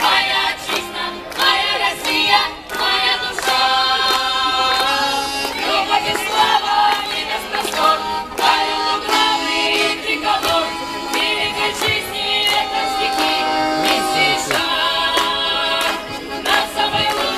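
Russian folk ensemble of women and men singing a song together in several voices into stage microphones.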